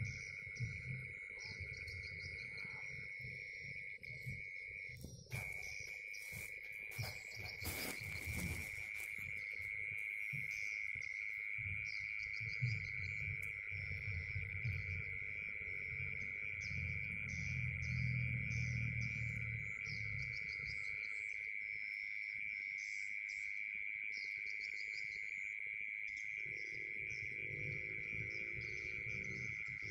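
Night insects calling: a steady high trill with rapid pulsed chirping above it. A brief rustle or knock comes about eight seconds in.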